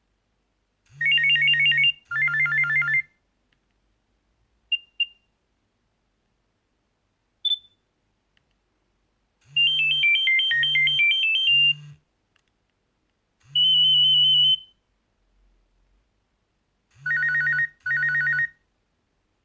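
Nokia 6230 mobile phone playing short previews of its ringtones and alert tones through its small loudspeaker: bursts of bright electronic tone melodies a second or two long with pauses between them, one of them a falling-then-rising run of notes and one a single held tone. A low buzz runs under each burst, the phone's vibrating alert, and two short single beeps come between the first tones.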